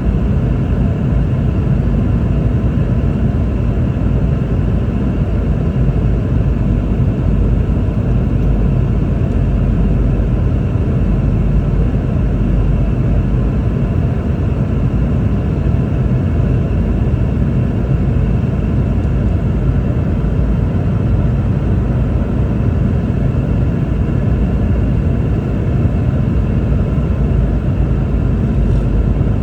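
Steady cabin noise inside a Boeing 717-200 in flight: a low rumble of airflow and its rear-mounted Rolls-Royce BR715 turbofans, with a faint steady whine above it.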